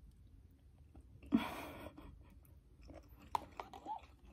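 A person chewing a mouthful of ramen noodles, with one short louder noisy sound about a second and a half in and a few small mouth clicks near the end.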